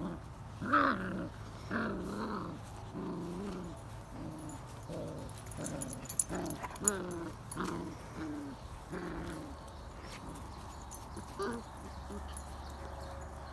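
A litter of 40-day-old Irish Setter puppies growling during rough play-fighting: a string of short puppy growls about one a second, thinning out and fading near the end.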